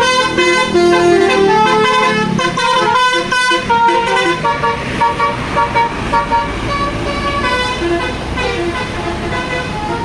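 A bus's 'basuri' telolet horn, a set of musical air horns playing a tune in steady stepped notes, loudest in the first four seconds or so and fainter after, over the low rumble of the bus engine.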